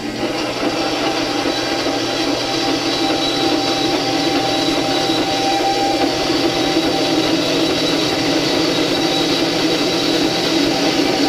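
A 10-inch benchtop bandsaw, slowed with a speed reduction pulley kit, is sawing through 1-inch round tubing with a .095-inch wall. The blade-on-metal cutting noise is steady, with a thin high whine, and gets louder about half a second in as the blade bites into the tube.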